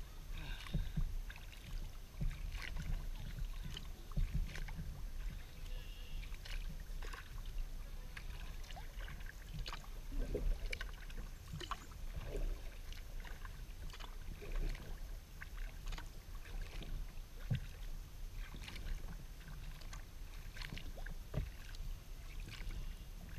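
Kayak paddling: the paddle blades dip and pull through calm water with splashes and drips in an uneven rhythm, over a steady low rumble.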